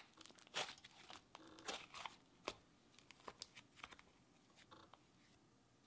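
Butter slime being squeezed and kneaded by hand, giving faint, scattered small clicks and squelches that thin out over the last couple of seconds.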